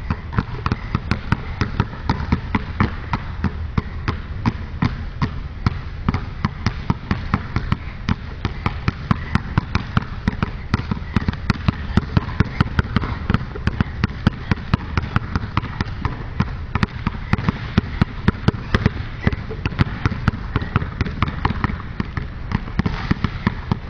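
Two basketballs dribbled at the same time on an indoor court floor: a steady, quick run of bounces, several a second, keeping on without a break.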